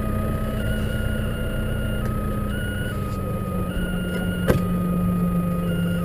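Tractor engine running steadily as heard from inside the cab while snow ploughing, with a thin whine that steps back and forth between two pitches every half second or so. A single sharp knock comes about four and a half seconds in.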